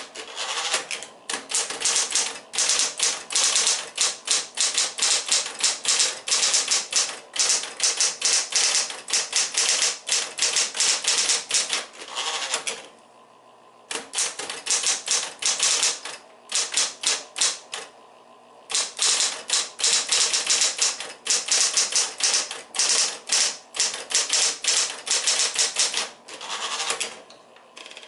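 Smith-Corona Coronet Electric 10 electric typewriter typing in fast runs of sharp key strikes, broken by a couple of short pauses, with the motor's steady hum heard in the gaps.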